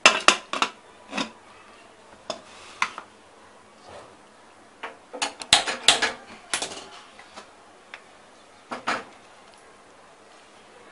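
Metal clanks of an aluminium pressure cooker lid being fitted, then a quick run of sharp clicks as a hand-held gas lighter sparks and the stove burner is lit. A double knock near the end as the cooker is set down on the burner.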